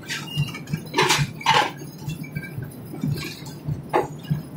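A few sharp metallic clinks and knocks from a passenger train carriage: about one second in, again half a second later, and once more near the end, over a low steady hum.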